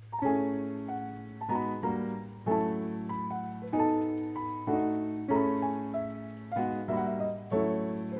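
Background music: a gentle piano melody of struck notes that ring and fade, each new note or chord about every half second to second, over a steady low sustained tone.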